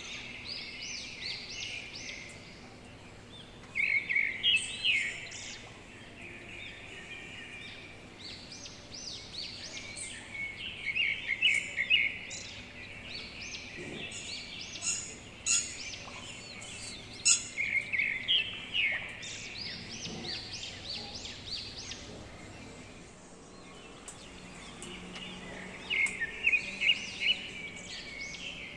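Birds chirping in quick bouts of rapid notes that come back every few seconds. Around halfway through there are a few sharp snips of small pruning scissors cutting thin stems.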